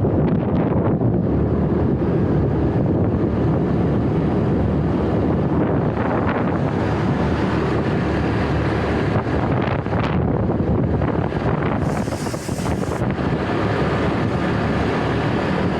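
Steady noise of running machinery with wind buffeting the microphone, and a short hiss about twelve seconds in.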